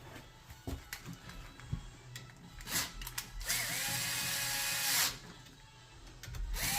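Cordless drill running in two short bursts, each spinning up, holding a steady whine for a second or so, then winding down. A few light clicks and handling knocks come before them.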